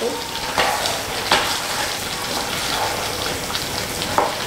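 Chickpea curry in tomato sauce sizzling in a stainless-steel pot as it is stirred with a wooden spoon, with a few sharper scrapes of the spoon against the pot.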